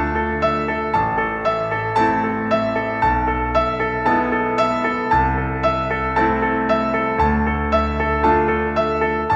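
Background instrumental music: evenly spaced notes, about two a second, over a low bass line that changes every second or so.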